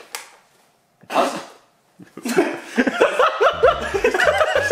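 A person sneezing once, loud and short, about a second in, then laughing; background music with a steady low beat comes in near the end.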